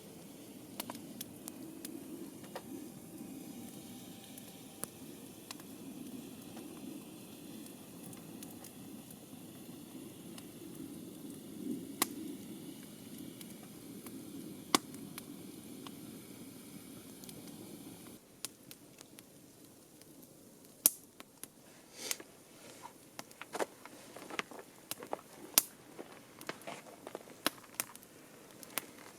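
Campfire crackling, with food sizzling over it. About two-thirds of the way through the sound changes abruptly to sharper, more frequent pops and snaps.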